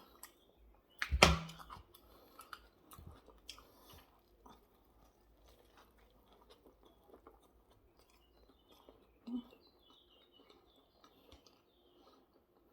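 Close-up chewing and mouth sounds of someone eating a hamburger and salad: soft wet clicks and crunches. A loud thump comes about a second in, and there is a short hum around nine seconds.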